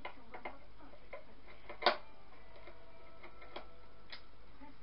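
Screwdriver clicking and tapping on the metal parts of a Hoover Senior vacuum cleaner's motor, with one louder metal clink about two seconds in that rings briefly, over a steady background hiss.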